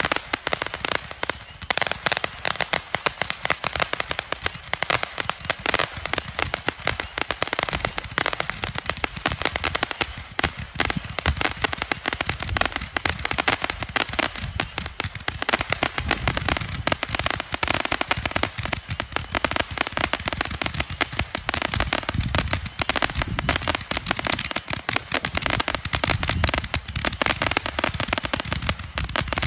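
Sunwing Super Gatlin Blaster rapid-fire firework cake shooting shot after shot, a dense, nearly unbroken stream of launch pops and crackling bursts.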